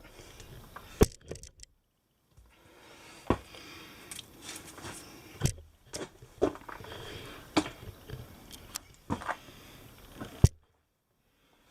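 Scuffing, scraping and sharp knocks as someone clambers through a small rock cave, with about seven separate knocks spread irregularly among quieter rustling, and two short dead gaps.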